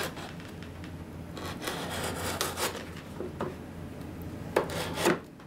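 A Glock field knife sawing through the tape and cardboard of a shipping box: a rasping scrape in several strokes, with two sharp clicks near the end.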